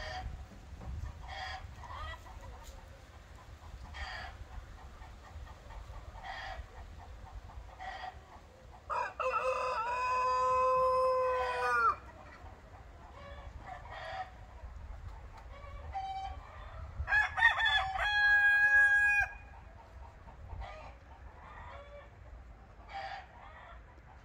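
A rooster crowing twice, each crow about three seconds long, the second higher-pitched. Hens clucking in short calls throughout.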